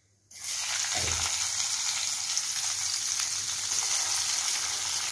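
Sliced onions and cumin seeds frying in hot oil in a pan, a steady sizzling hiss. There is a soft low thump about a second in.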